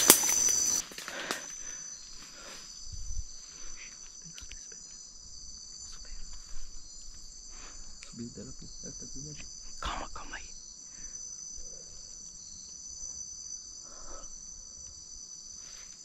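Chorus of night insects trilling steadily at a high pitch, with scattered rustles and snaps of footsteps through dry leaf litter and vines, the sharpest about ten seconds in.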